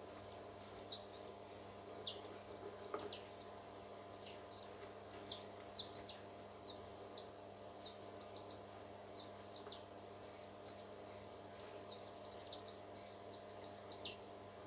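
Bird chirping in quick runs of three to five short, high notes, repeating every second or so, over a steady low hum.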